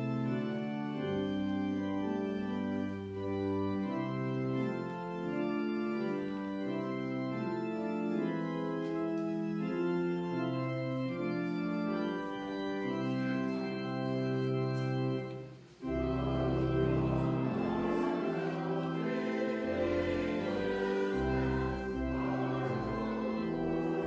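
Church organ playing a hymn in sustained chords. About 16 seconds in it breaks off for a moment, then comes back fuller, with deep bass notes underneath.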